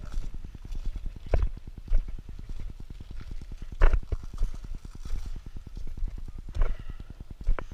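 Footsteps crunching on the brittle crust of cooled pahoehoe lava: a handful of sharp, irregularly spaced crunches, the loudest about four seconds in, over a steady low rumble.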